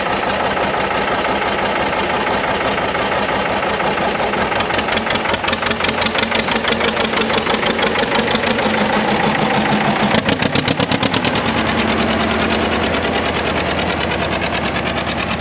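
John Deere Model R's two-cylinder diesel engine running with an even, slow beat of about four pulses a second, the beat growing louder and sharper a little past the middle as the tractor moves off down the track.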